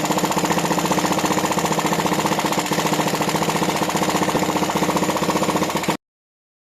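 Engine running steadily with a fast, even hammering beat, cutting off suddenly about six seconds in.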